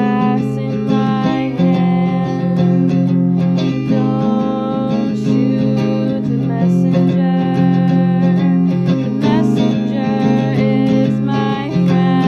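Music: an acoustic guitar playing the chord accompaniment of a song, the chords changing every second or two.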